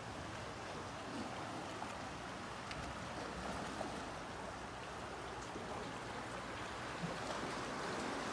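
Steady rushing and trickling of water around the deck.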